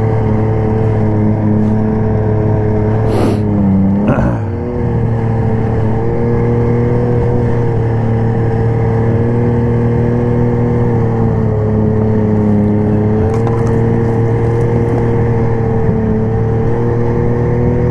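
Snowmobile engine running at a steady cruising speed as the sled moves through snow. About four seconds in, the engine eases off briefly and then picks up again.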